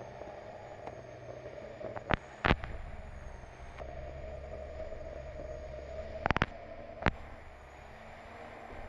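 Unlimited hydroplane's turbine engine running at low power, heard through the onboard camera housing as a steady hum with a faint high whine. Several sharp knocks break in, about two seconds in, at two and a half seconds, twice close together past six seconds, and once at seven seconds.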